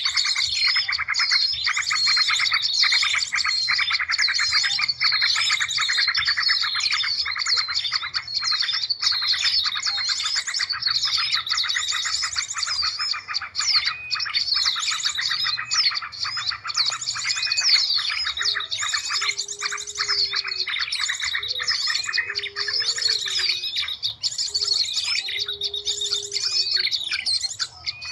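Bird-luring recording: a dense chorus of many small songbirds chirping and twittering, with calls overlapping continuously. About two-thirds of the way through, a short low note begins repeating every second or so beneath the chirping.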